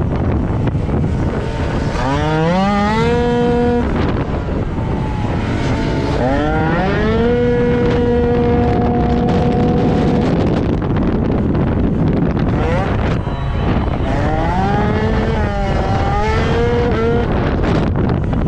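Piaggio Zip racing scooter engine revving hard, its pitch climbing steeply about three times and each time levelling off at a steady high note, with wind noise throughout.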